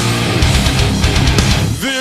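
Heavy metal music with distorted electric guitar. Near the end the full band drops out and a single sliding note comes in.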